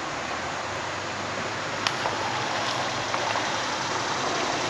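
Steady rushing of flowing river water, with a single faint click about two seconds in.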